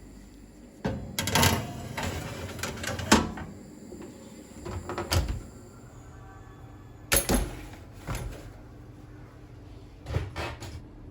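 Knocks and clatter of things being handled and set down, in four separate groups a few seconds apart.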